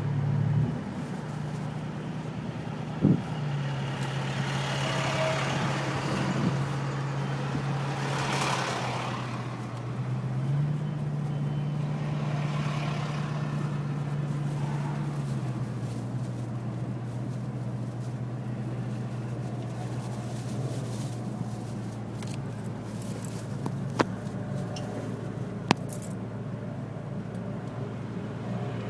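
Car engine and road noise: a steady low hum that steps up and down in pitch a few times, with a few sharp clicks.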